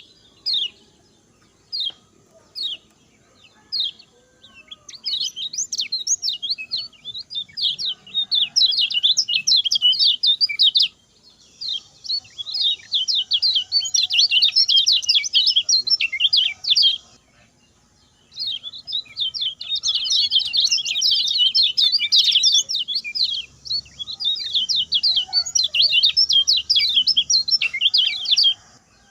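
Common iora singing its short, rapid song: a few separate chirps, then long fast runs of high, sharp notes broken by brief pauses.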